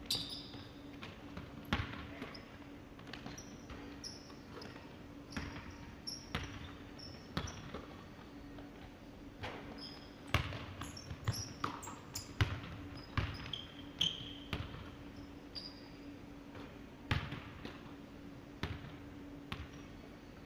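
A basketball bouncing and being dribbled on a hardwood gym floor, irregular thuds that ring in the hall. Short high sneaker squeaks come in between, over a steady low hum.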